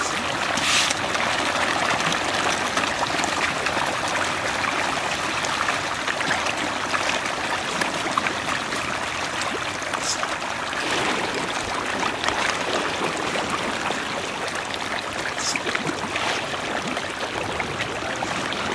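A dense shoal of tilapia thrashing at the water surface as they feed, a steady churning splash with a few sharper splashes standing out.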